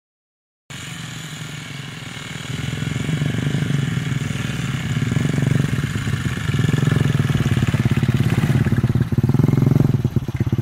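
Engines of two children's quad bikes and a mini dirt bike running together as they ride; the sound cuts in abruptly just under a second in and grows louder about two to three seconds later.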